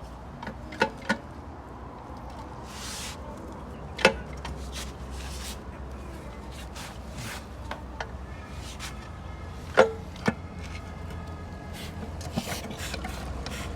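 Scattered sharp clinks and knocks of metal automatic-transmission parts being handled and fitted into the case, a few with a short ring, over a low steady hum.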